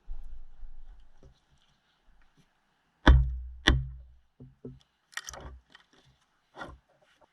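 Knife chopping into wood: two hard strikes a little over half a second apart about three seconds in, followed by lighter knocks and scraping.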